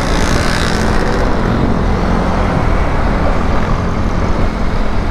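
Honda ADV scooter's single-cylinder engine running while riding in city traffic and picking up a little speed, under a steady rush of road and wind noise.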